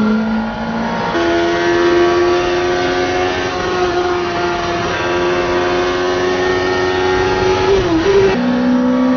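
Yamaha R1 inline-four motorbike engine in a Mini race car, heard from inside the cabin at full song. The note steps up about a second in, holds high and nearly steady for about seven seconds, then drops back near the end.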